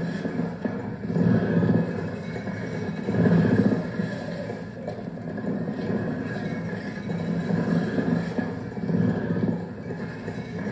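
Cassette tape loops playing on four Walkman players, mixed live through a small mixer: a dense, murky loop texture that swells and fades, with surges of low rumble every few seconds.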